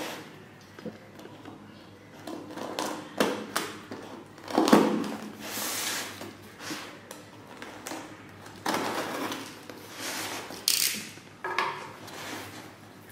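Utility knife scraping and slicing through packing tape on a cardboard box, with irregular rustling and crinkling of cardboard and tape and a few sharp clicks as the box is handled.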